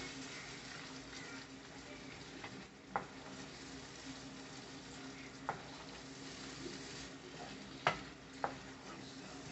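Prawns frying in oil and spice paste in a frying pan, a steady sizzle, while a spatula stirs them and knocks against the pan four times.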